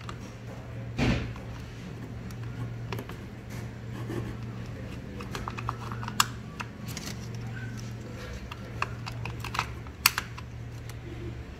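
Irregular plastic clicks and taps of refill ink cartridges being pressed and snapped back into a DTG printer's print-head carriage, with a heavier knock about a second in, over a steady low hum.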